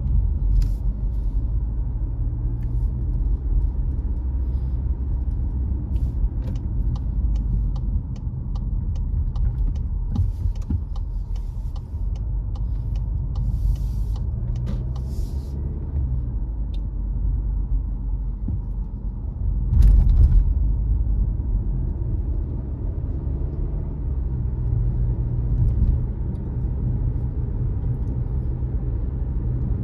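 Car driving along a road, a steady low rumble of engine and tyres. Small clicks and ticks come and go for a few seconds near the middle, and one louder thump comes about twenty seconds in.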